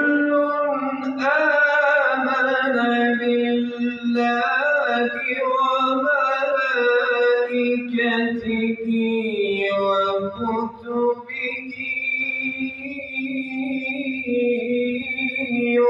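A man reciting the Quran in the melodic tajwid style, drawing out long ornamented phrases with pitch turns and brief pauses for breath. He ends on one long held note over the last few seconds.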